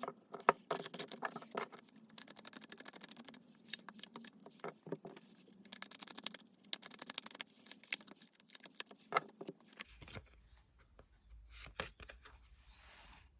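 Tarot cards being shuffled and handled: a rapid run of light clicks and taps. About ten seconds in the clicking thins out to a few taps over a low hum.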